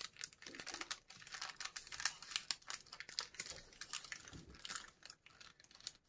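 Baking parchment paper crinkling in faint, irregular crackles as it is pulled away from the edges of a baked sponge sheet.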